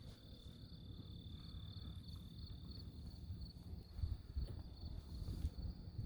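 Insects chirping steadily outdoors: a high, rapidly pulsing trill over a second steady high tone, like crickets. Beneath it is a faint low rumble with a few soft thumps.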